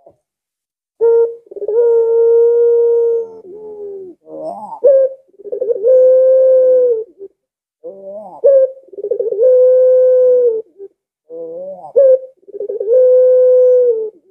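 Barbary dove (puter) cooing: about four phrases, each a short note followed by a long, steady, drawn-out coo that drops in pitch at its end. This drawn-out tail is the 'lengkungan' that puter pelung keepers prize.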